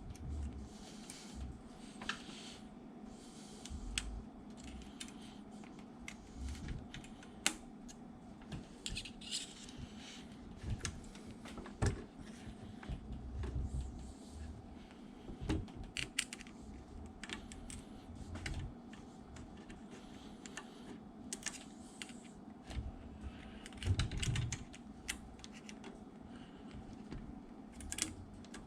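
Irregular small metal clicks and taps, with a few dull thumps, from hand-assembling valves, springs and retainers into a small-block Chevrolet cylinder head.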